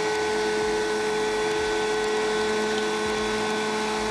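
Small electric food chopper running steadily with an even motor hum, grinding cookies into crumbs.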